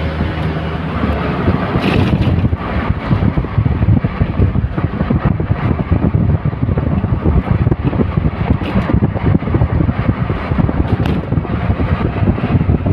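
Wind buffeting the microphone of a moving vehicle, over rumbling road and engine noise, with a few sharper gusts.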